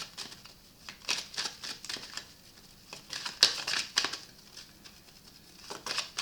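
Tarot cards being handled: clusters of light papery clicks and slides as cards are moved and laid down, about a second in, around three seconds in, and again near the end.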